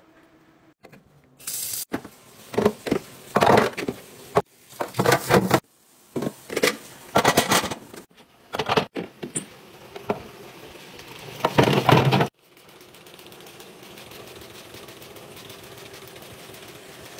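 Hard items being handled and set down: a busy run of irregular clicks, knocks and clatter, then a steady faint hiss from about twelve seconds in.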